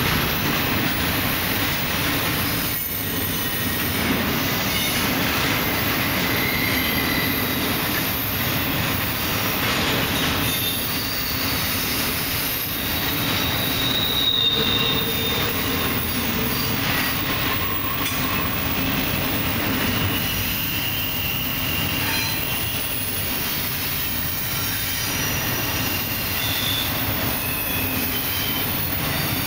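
CSX double-stack intermodal freight cars rolling steadily past, with a continuous rumble and clatter of steel wheels on the rails and a few brief, high wheel squeals.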